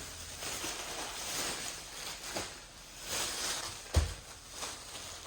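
Plastic packaging rustling and crinkling as shopping items are handled, with a single thump about four seconds in as something is set down.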